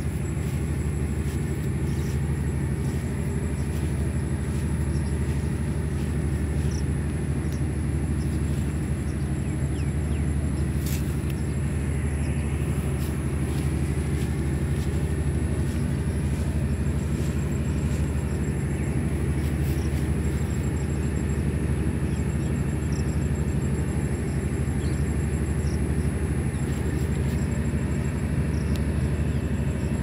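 A steady low mechanical drone, like an engine or motor running at constant speed, with a thin high steady whine above it.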